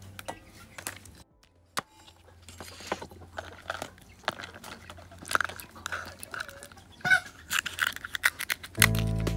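Cooked king crab shell cracking and crunching in a run of sharp snaps and clicks as the legs are cut with kitchen scissors and broken open by hand. Music comes in near the end.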